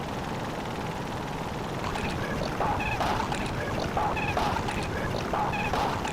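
A steady rushing noise. About two seconds in, a run of short, repeated pitched calls joins it and goes on to the end.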